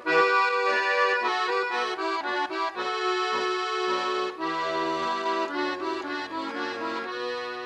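Instrumental interlude between verses of a folk song: a melody played over held chords, with no singing.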